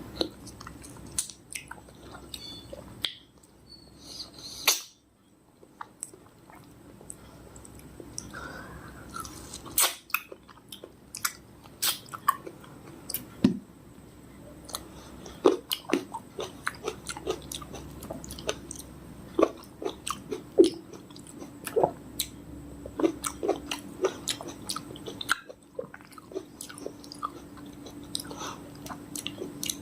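Close-miked chewing and biting of fresh fruit: a steady run of short, wet mouth smacks and clicks, with a couple of brief pauses.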